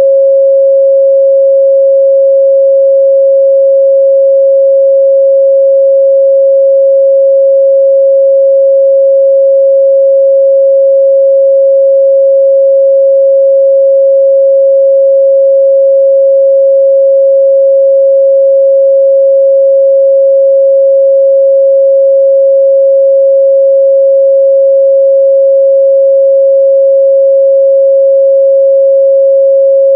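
A steady 545 Hz sine-wave test tone, one pure unchanging pitch held at a constant loud level.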